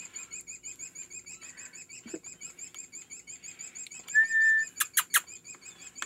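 Nestling songbirds begging with a fast, steady run of high chirps, several a second. About four seconds in there is a short steady whistled note, then a few sharp clicks.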